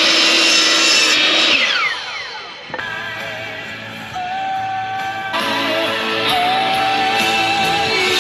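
Electric miter saw running, its motor winding down with a falling whine about a second and a half in. Background music with a melody follows.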